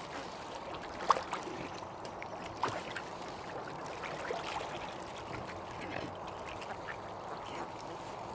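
Mallard ducks quacking over steady background noise, with two brief sharp sounds about one and two and a half seconds in, the first the loudest.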